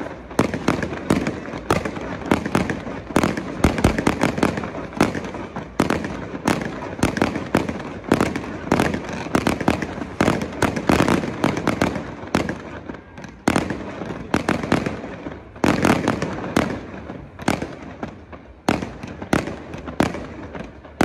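Fireworks display: an unbroken run of sharp bangs, pops and crackling as shells and fountains go up and burst, coming in denser flurries now and then.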